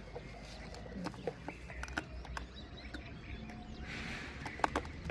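Faint bird chirps outdoors, with scattered small clicks and taps. There is a brief breathy hiss about four seconds in and a few sharper clicks just after it.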